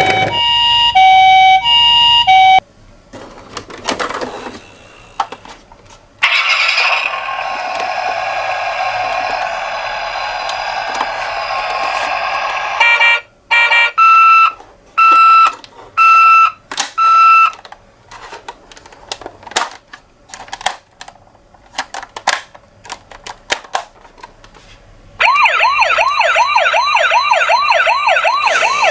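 Electronic siren sounds from a toy ambulance's small speaker. It opens with a two-tone hi-lo siren, then gives a long raspy electronic sound, then four steady beeps about a second apart, and near the end a fast up-and-down wailing siren. Scattered clicks fall in the gaps between them.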